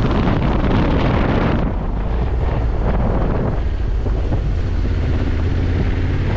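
Heavy wind noise buffeting the camera microphone on a moving Honda Africa Twin motorcycle, with the engine's steady low drone underneath. The rush of wind eases somewhat partway through.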